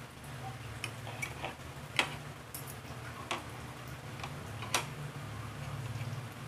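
Fork and knife clinking and scraping on a ceramic plate as food is cut and picked up: a handful of sharp, separate clicks, the loudest about two seconds in, over a steady low hum.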